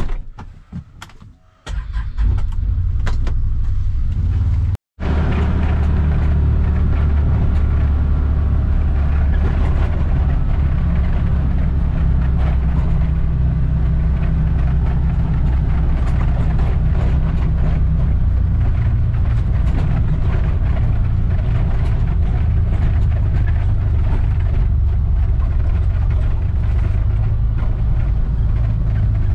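Side-by-side UTV's engine and drivetrain running steadily as it drives over rough field ground, heard from inside the enclosed cab as a loud low rumble. A few clicks and knocks come before the rumble starts, a couple of seconds in, and it cuts out briefly near five seconds in.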